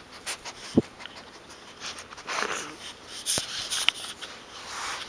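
Pug sniffing and breathing noisily right at the microphone, in short, irregular breathy bursts with a couple of small clicks.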